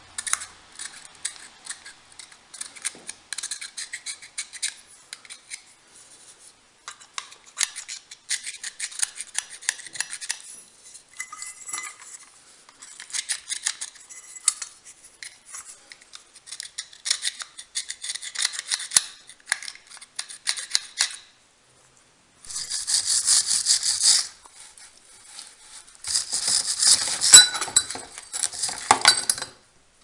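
Utility knife blade scraping grime and old paint off the metal parts of a Victorian doorbell pull mechanism, in short bouts of fine, rapid scratching. Near the end come two louder, denser bouts of harsh scraping.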